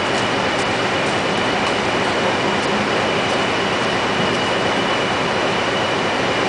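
Heavy machinery running steadily: a loud, even mechanical noise with a thin high whine and faint clicks about once a second.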